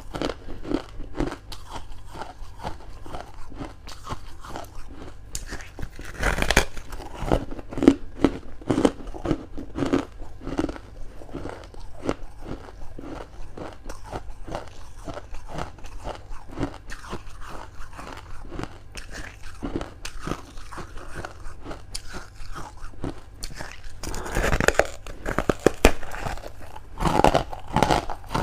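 Close-up crunching and chewing of freezer frost: rapid crackling crunches between a few louder bites, the loudest near the end.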